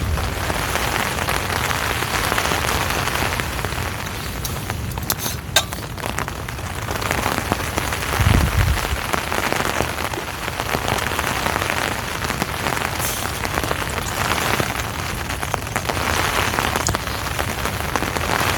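Heavy rain falling steadily on a tunnel tent. A few sharp ticks come about five seconds in, and a brief low thud a few seconds later.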